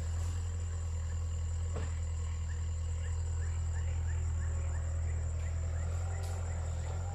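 Caterpillar 305.5E2 mini excavator's diesel engine running steadily, a deep even hum. Over it are a thin high steady tone and faint short chirps repeating about three times a second.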